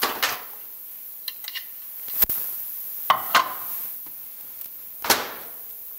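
Built-in microwave's door being opened and shut and a bowl set inside: a handful of separate clicks, knocks and short clatters, some with a brief ring.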